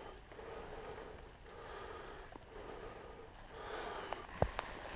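A person breathing in and out, faint, in repeated soft breaths, with a few sharp clicks near the end.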